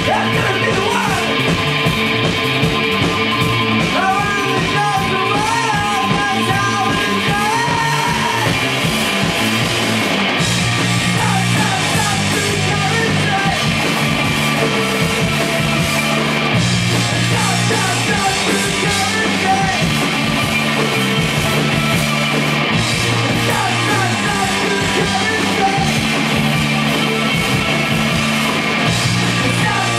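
Live rock band playing a song with electric guitars, bass guitar and drum kit, recorded through a handheld camcorder's microphone.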